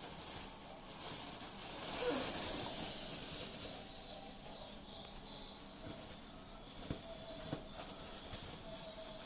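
Australian Shepherd puppies playing and wrestling over a steady hiss, with a short whine about two seconds in and two light knocks later on.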